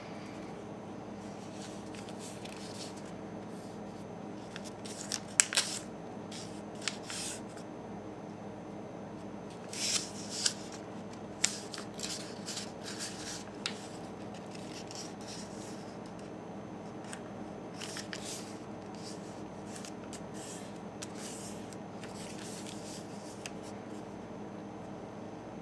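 A sheet of paper being folded and creased by hand on a wooden table: crisp rustles and sharp crinkles, a few about five seconds in and a cluster around ten to fourteen seconds, quieter handling after, over a steady low hum.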